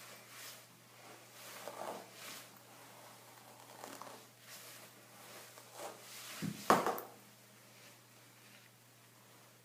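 Scattered light rustling and handling noises, with one sharp knock about two-thirds of the way through.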